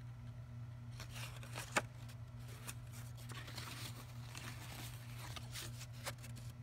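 Rustling and handling of paper items, with one sharp click a little under two seconds in, over a steady low electrical hum.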